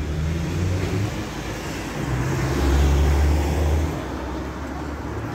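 A motor vehicle's engine running with road traffic noise, swelling louder from about two and a half seconds in and easing off near four seconds.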